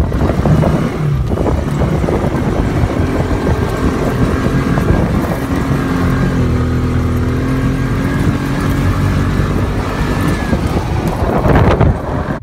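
Side-by-side off-road vehicle being driven over desert ground: engine running under a constant rough, bumpy rumble, its note holding steady for a few seconds around the middle of the ride.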